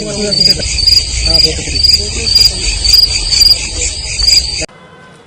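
Crickets chirping in a pulsing rhythm, about two chirps a second over a steady high trill, with faint voices underneath; the sound cuts off suddenly near the end.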